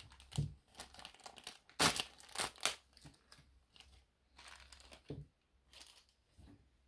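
Clear plastic packaging bag crinkling and rustling in irregular bursts as it is handled and a small plastic figure is pulled out of it, with a few soft knocks as things are set down on the table.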